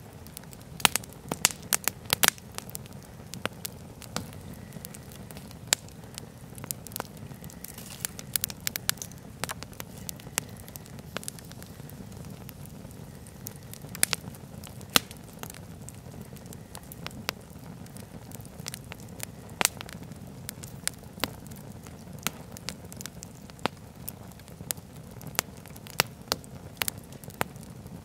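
Wood campfire burning, logs crackling with irregular sharp pops over a steady low rush of flame.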